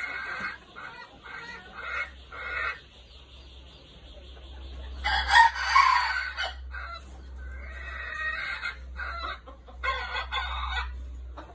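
Caged red junglefowl roosters crowing and clucking: short calls early on, a loud crow about five seconds in, then more broken calls near the end.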